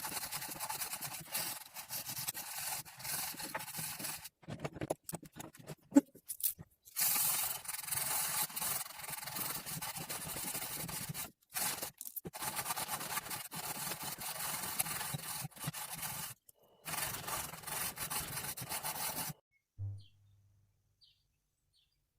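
Sandpaper rubbed back and forth by hand along a steel knife blade, a scratchy rubbing in runs with a few short breaks, stopping about three seconds before the end.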